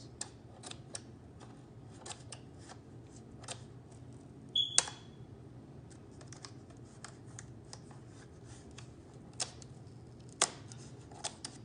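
Scissors cutting and working at stiff plastic packaging: scattered small clicks and crackles, with a sharp snip that rings briefly about halfway through and another sharp snip near the end. A low steady hum runs underneath.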